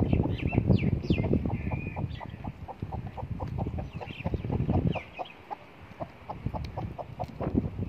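Chickens clucking, with short high calls mostly in the first few seconds, over a steady run of low, dull knocks.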